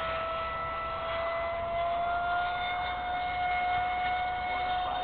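Electric ducted fan of a radio-controlled jet in flight: a steady high whine with overtones, its pitch edging slowly upward.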